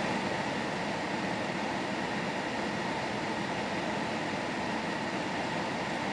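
Steady, even background noise inside a car's cabin as it drives.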